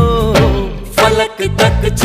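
Background music from a Hindi film song, with a steady beat and a brief dip in the beat around a second and a half in.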